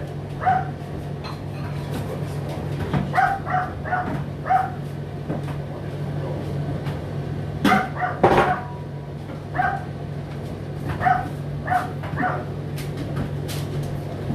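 A dog barking in short runs of quick, high yaps, over the steady low hum of an Indesit IDC8T3 condenser tumble dryer running its cooldown.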